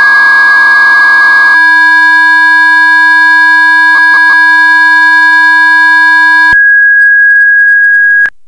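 Two V.21 modem carriers whistling together, a steady higher tone and a lower one near 1 kHz. The lower one warbles with data for the first second and a half, then holds a steady idle tone. It flickers three times briefly about four seconds in, then cuts off suddenly; the higher tone runs on and stops abruptly just before the end as the call is hung up.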